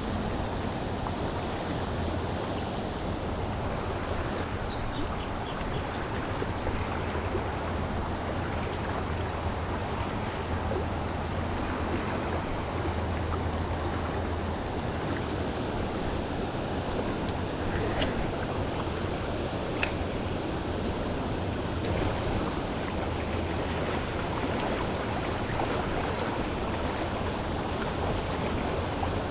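Steady rush of water and wind with a low, even engine hum underneath: a small boat running on the river.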